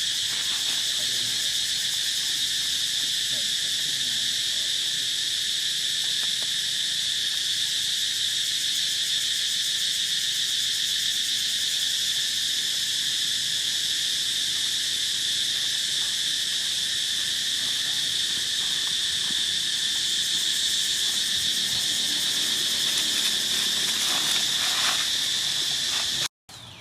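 Insects droning in a loud, steady, high-pitched chorus that holds unbroken and cuts off abruptly near the end.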